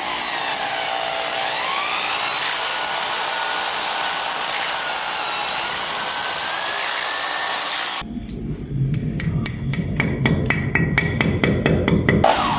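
Corded Skil electric drill boring into a wall, running steadily for about eight seconds with a motor whine that wavers in pitch. It then gives way abruptly to a quick series of sharp clicks and knocks over a low rumble.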